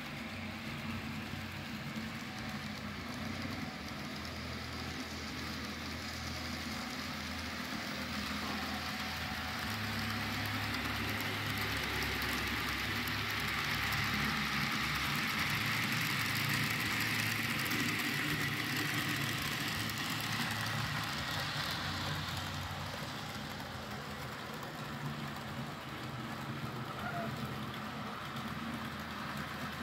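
Model freight train running along the track, the locomotive's motor and the wagons' wheels giving a steady whirring rumble that grows louder about a third of the way in as the train passes close, then eases off again.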